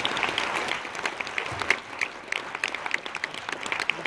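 Audience applauding. It thins out about halfway through, leaving more separate claps.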